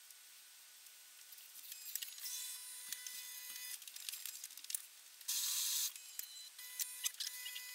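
Sped-up pencil strokes scratching on paper: after a quiet start, fast high scratching begins, with a louder steady hiss lasting about half a second around five seconds in.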